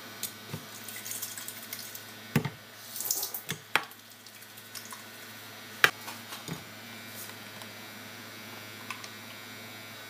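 Kitchen handling sounds at a metal cooking pot: a string of separate knocks and clicks, the sharpest about six seconds in, with short noisy stretches in the first few seconds, then little but a steady low hum for the last few seconds.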